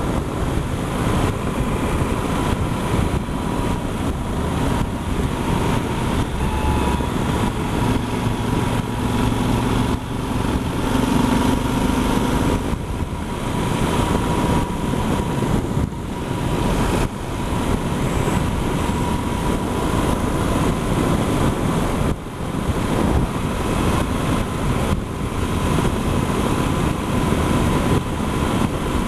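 Yamaha Super Ténéré adventure motorcycle riding at road speed: steady wind rush over the camera microphone, with the 1200 cc parallel-twin engine running beneath it and a thin steady whine.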